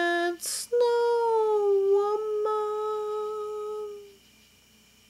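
A woman's voice holding a long wordless hummed note, broken by a quick breath about half a second in; the note wavers slightly and fades out about four seconds in, leaving faint hiss.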